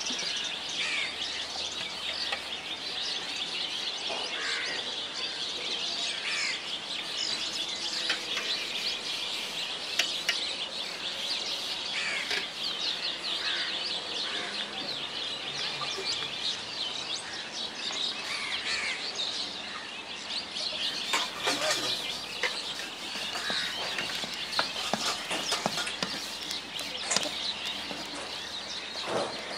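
Many small birds chirping continuously in a dense chorus, with a few sharp clicks in the second half.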